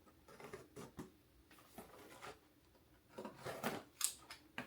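Faint rubbing and rustling of a product package being handled. A few short scrapes come in the first two seconds, then denser, louder scraping near the end.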